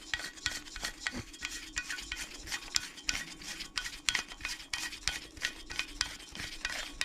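Toilet parts being handled and fitted by hand: rapid small clicks, taps and scraping of hard parts rubbing together, over a faint steady hum.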